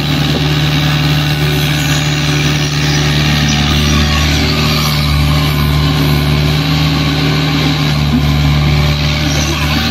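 Doosan DX55 mini excavator's diesel engine running at a steady pitch while the machine digs and swings, a low, even drone.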